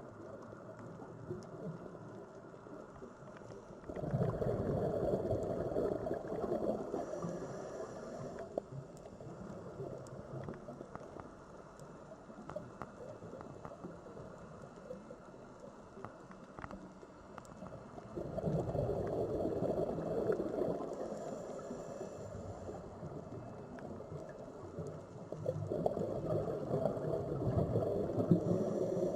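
Sea waves washing in, a steady wash that swells louder three times and eases off between.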